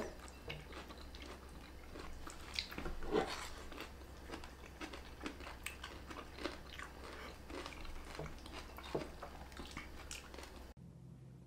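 Faint eating sounds from people sharing tteokbokki: chewing, with scattered light clicks and taps of chopsticks on the pan and bowls. The sounds stop near the end.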